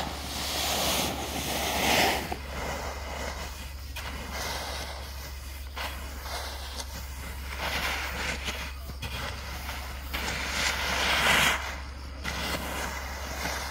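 Paddy rice grains rushing and swishing across a plastic tarp as they are pushed with a long wooden rake, in several swells a few seconds apart, over a steady low hum.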